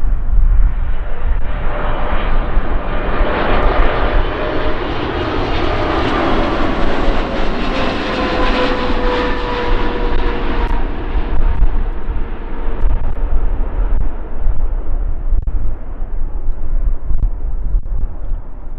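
Boeing 777 freighter's twin GE90 jet engines on landing approach, passing close by. The engine noise swells to a peak about halfway through, with a whine that falls in pitch as it passes, then fades away over a steady low wind rumble on the microphone.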